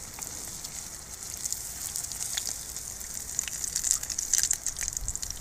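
Battered mantis shrimp deep-frying in hot oil: a steady high sizzle with scattered crackling pops that grow busier in the second half.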